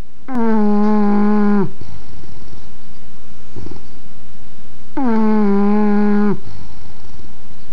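English bulldog snoring: two long, buzzy snores held at a steady pitch, each about a second and a half and about four seconds apart. A shorter, rougher breath comes between them.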